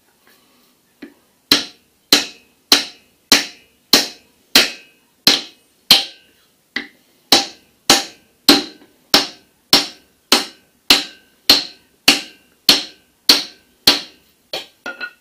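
A hammer striking a stick of oak laid across a cylinder bore of a John Deere 410 backhoe engine block, driving a part down into the bore. About twenty even, sharp blows come at a steady pace of roughly one and a half a second, starting about a second and a half in, then a few lighter taps near the end.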